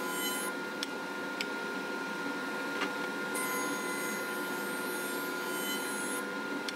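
Jointer running steadily, with its cutterhead taking light cuts off the face of a rough black walnut block on its final flattening passes. One cut ends about half a second in and another runs from about three and a half to six seconds in, with a few light knocks in between.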